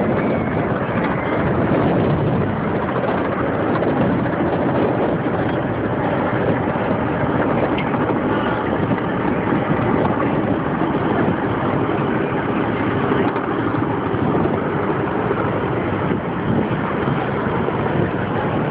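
Steady drone of aircraft engines during a fly-by.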